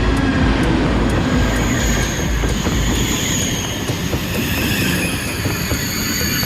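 High-speed train running on the rails: a steady low rumble with thin, high whining tones, and a regular light clicking in the first few seconds.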